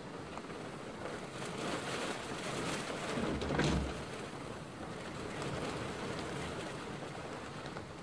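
Nature ambience of steady rushing water, swelling to a peak about halfway through and then easing off.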